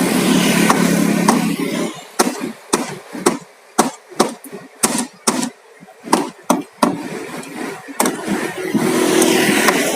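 About a dozen sharp, irregular hammer blows, roughly two a second, as in nailing wooden concrete formwork, with a steady engine running at the start and again near the end.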